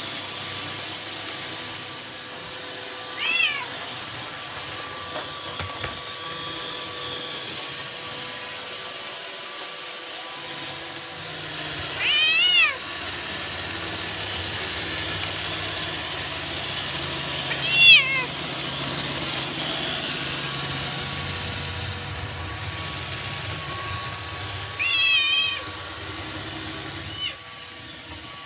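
Bengal cat meowing several times, short arching calls a few seconds apart, over the steady hum of a Roomba robot vacuum running.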